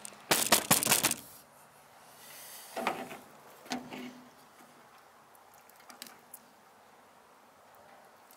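About a second of loud clattering handling noise at the start, then a few softer knocks and rustles and faint small ticks as a knife is worked on trout lying on a pickup tailgate.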